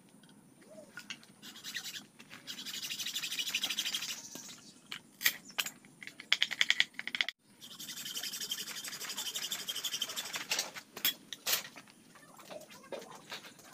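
A hand saw and a knife blade working green bamboo: two long stretches of fast rasping as the blade cuts and scrapes the cane, broken by sharp clicks and knocks of the bamboo pieces.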